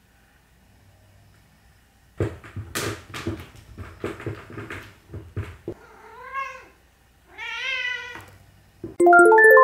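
A domestic cat playing with a wand toy on a wooden floor: a run of knocks and scuffles, then two meows, the second longer. A short run of rising musical notes starts near the end.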